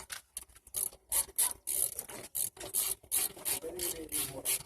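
Hand ratchet wrench swung back and forth on a brake caliper bolt, its pawl rasping in quick short strokes about three a second.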